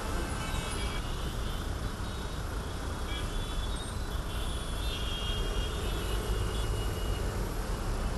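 Steady rumble of a city traffic jam: car engines idling and creeping along in a queue, with a few faint higher tones over it.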